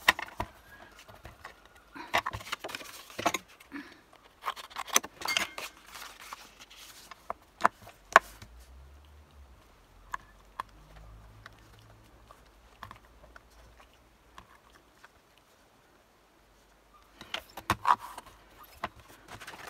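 Clear stamps and magnets being handled and set down on a stamping platform: scattered light clicks and taps, with a quieter stretch in the middle.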